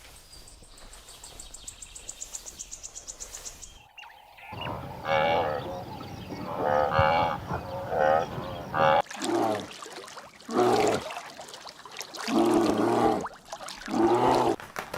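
A run of animal calls cut together: first a faint, rapid high chirring, then a few short wavering calls, then cattle mooing four or five times in long, low calls.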